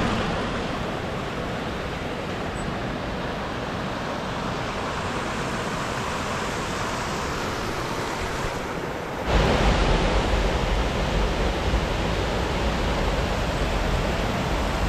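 Steady rushing of a fast-flowing stream cascading down a stepped waterfall. About nine seconds in it becomes louder, with a deeper rumble.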